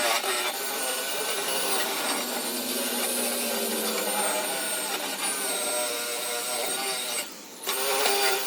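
Powered wire brush scouring rust and loose dust off a car's steel wheel well, the motor's whine wavering as it is pressed against the metal. It stops briefly about seven seconds in, then starts again.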